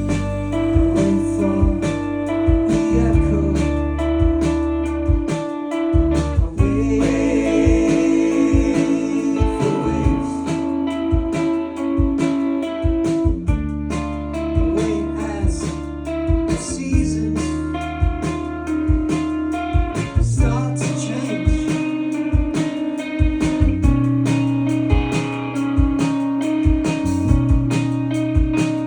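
Indie rock band playing live: electric guitar and electric bass over drums keeping a steady beat.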